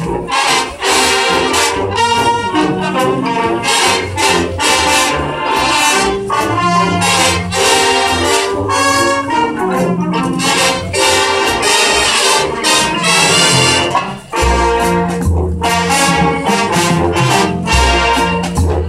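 Marching band playing, led by trumpets and trombones over percussion. The music dips briefly about fourteen seconds in, then comes back with heavy low notes.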